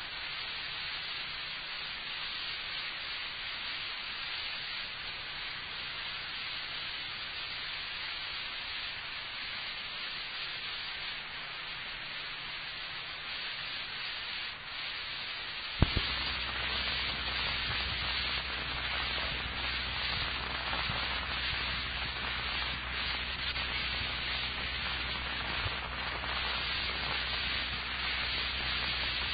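Steady hiss of an old recording with no speech. About 16 seconds in there is a sharp click, after which the hiss grows louder, joined by a low hum and scattered crackling.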